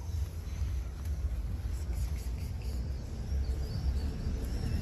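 Outdoor background sound: a low, uneven rumble on the microphone with faint high chirps scattered over it. No meow is heard.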